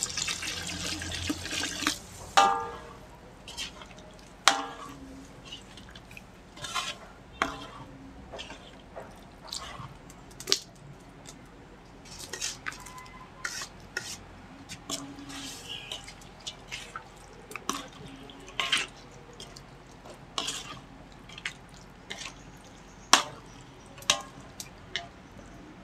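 Sizzle of coconut milk poured into a hot metal wok of frying vegetables, dying away over the first two seconds. Then scattered sharp taps and clinks of a spatula and ingredients against the wok, a few with a brief metallic ring.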